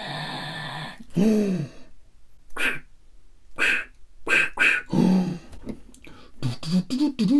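A man making sound effects with his mouth, not words. About a second in there is a falling pitched voice sound, then several short hissing bursts, then more short grunt-like voiced noises near the end.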